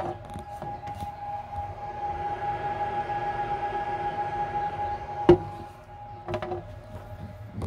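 Small electric motor whining steadily, with a hiss that swells in the middle and one sharp click about five seconds in; the whine drops away shortly after the click.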